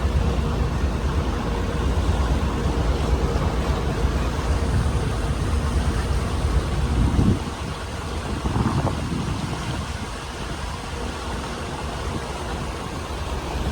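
Boat engine running steadily with a deep rumble and a faint constant hum, with wind and water noise over it; the rumble eases slightly about seven seconds in.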